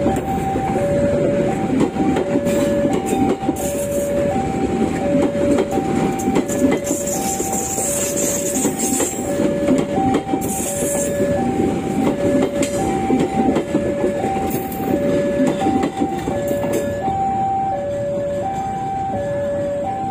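Passenger coaches of a local economy train rolling past at close range, the wheels rumbling and clattering over the rail joints. Over this, the level crossing's warning alarm sounds a steady alternating high-low two-note signal, about one high-low pair every second and a half.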